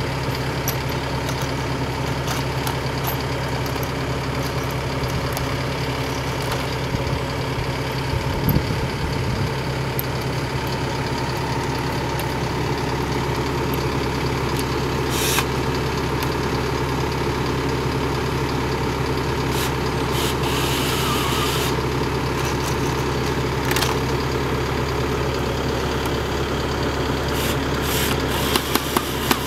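An engine running steadily at idle, with a few short clicks and knocks over it.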